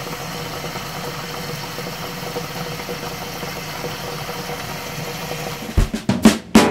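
Steady hiss with a low hum under it from a pan of chicken drumsticks cooking under a glass lid on low heat. Near the end, drum-kit music cuts in with a few loud hits.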